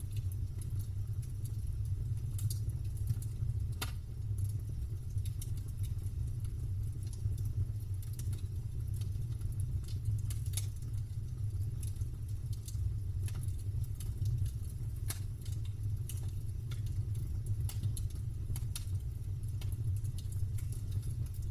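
Wood campfire crackling and popping: irregular sharp snaps of burning wood, one louder about four seconds in, over a steady low rumble.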